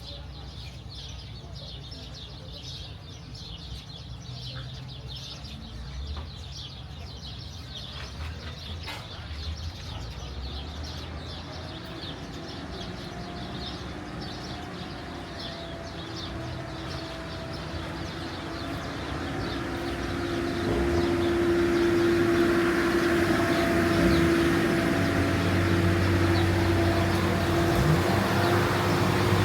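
Small birds chirping over a low rumble, then a motor vehicle's engine grows louder over several seconds and settles into a steady running note.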